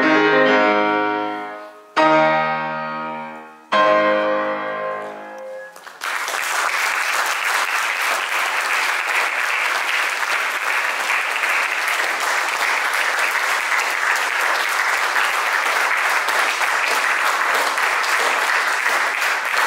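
Grand piano sounding the closing chords of a piece: a held chord fades, then two chords are struck about two seconds apart and left to ring out. Audience applause starts about six seconds in and continues steadily.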